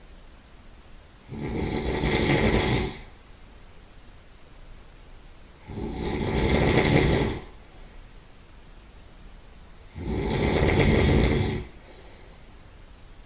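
A person's heavy nasal snoring: three loud snores about four seconds apart, each lasting about a second and a half, with quieter stretches between.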